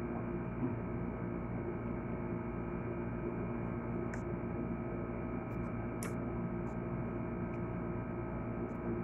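Steady electrical-type hum with an even hiss, unchanging throughout, with a couple of faint clicks about four and six seconds in.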